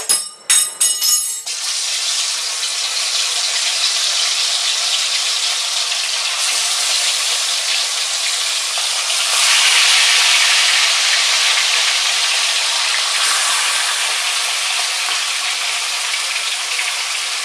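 Marinated chicken pieces frying in hot oil in a kadai, a steady loud sizzle. It opens with a few sharp clicks and knocks, and the sizzle swells a little about halfway through.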